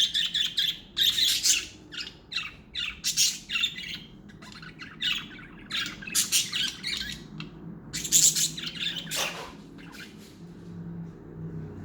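Budgerigars chirping and squawking in quick runs of short, high calls, busiest in the first few seconds and thinning out near the end.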